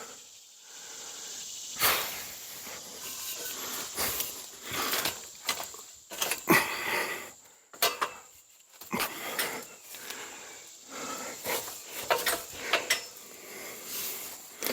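A man breathing hard and unevenly from exertion, with scattered knocks and scrapes in between.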